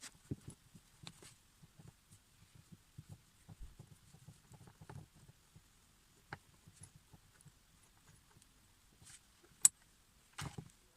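Scattered light clicks and taps of parts and tools being handled, with one sharp click about three-quarters of the way through and a short cluster of knocks near the end.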